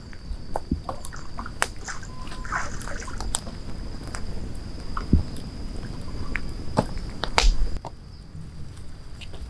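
Small firewood fire crackling, with mussels roasting in their shells among the embers: scattered sharp pops and clicks, and louder knocks about five seconds in and near seven and a half seconds. A thin steady high tone runs underneath.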